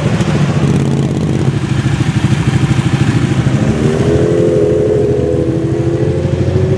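Sport motorcycle exhausts on a city street: a red superbike passing at low revs, then, about halfway through, a Honda CBR 1000RR's inline-four revving up, its pitch rising as it pulls away.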